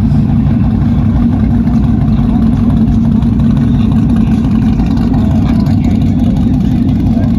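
Lifted pickup truck's engine running with a steady deep exhaust drone as the truck rolls slowly past.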